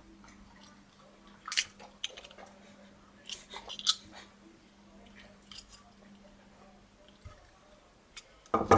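Scattered short crunches, scrapes and clicks of a soldering iron being pulled apart by hand, its heating element with brittle ceramic and mica insulation being worked loose. A faint steady hum runs underneath and stops about seven seconds in.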